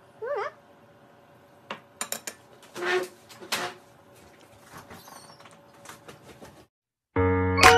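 Metal knives and forks clinking and scraping on ceramic plates during a meal, several sharp clinks between about two and four seconds in, then softer clicks. Near the end, keyboard music starts abruptly.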